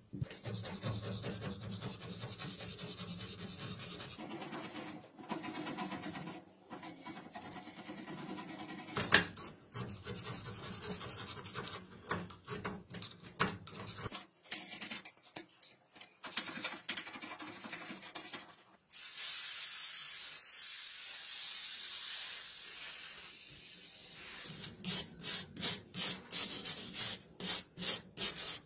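Rust-encrusted old revolver being rubbed and scrubbed, a continuous scratchy rubbing of the rusty metal with one sharp knock about nine seconds in. Near the end it turns into quick back-and-forth scrubbing strokes, about three a second.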